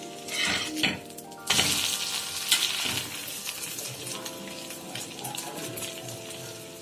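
Bread omelette frying on a flat iron dosa tawa. There are a few sharp spatula clicks against the griddle, then a louder burst of sizzling about a second and a half in as the omelette is turned over, settling into a steady sizzle.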